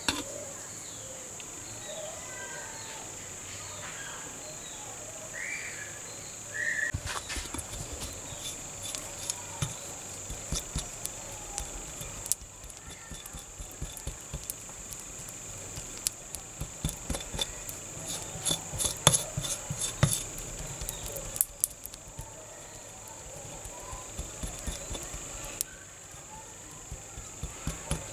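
A small metal spatula scraping, clicking and tapping on a steel plate as sticky two-part epoxy is stirred and spread, in quick irregular strokes. It starts about seven seconds in.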